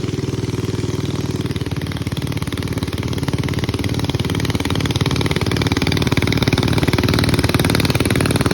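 Boat engine running steadily with a fast, even beat, getting louder about halfway through.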